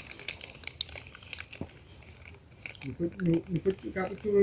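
Crickets chirping in a steady rhythm of pulses, about two to three a second, with voices talking faintly from about three seconds in.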